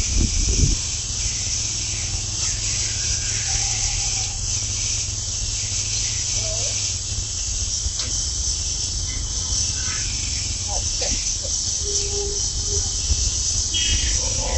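Gas ring-burner torch flame hissing steadily with a low rumble as it heats a rebar butt joint to welding heat, about 1200–1300 °C, in gas pressure welding.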